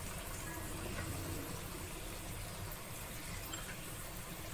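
Chicken, carrots and onion frying in oil in a nonstick wok: a faint, steady sizzle over a low hum.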